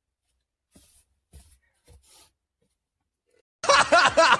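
Near quiet, with a few faint soft rustles in the first two seconds. About three and a half seconds in, music with a voice cuts in abruptly.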